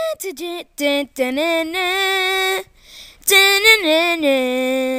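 A young female voice singing alone, with no instruments: a few short notes, then two long held notes with a short breath between them, the second dipping in pitch partway through.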